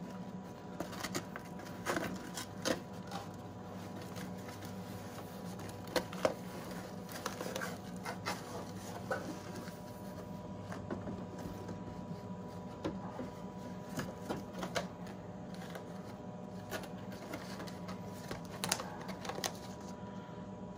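Cardboard packaging being handled: scattered light taps, scrapes and rustles as a cardboard insert is slid out of a box and set down, over a steady low hum.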